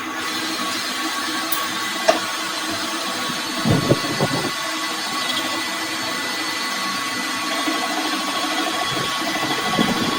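Workshop machine running steadily with a constant hum and whine, with a few short knocks about two and four seconds in.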